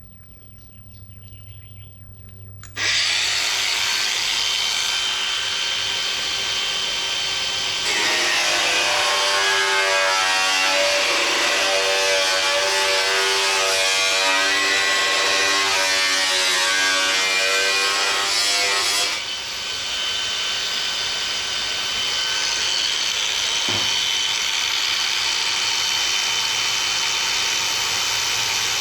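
A power cutting tool starts up about three seconds in and runs steadily with a high whine while cutting sheet metal on a car fender. From about eight to nineteen seconds a lower, wavering tone rides over it as the tool works through the metal, then it settles back to a steady run.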